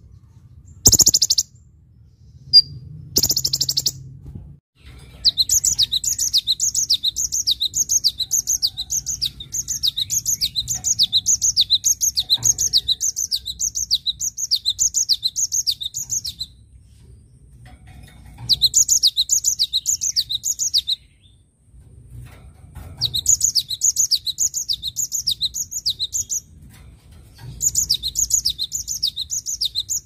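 A cinereous tit singing a quick series of high, falling whistled notes, about two a second, in four bouts with short pauses between them. Near the start there are two short, high buzzy trills from a sunbird.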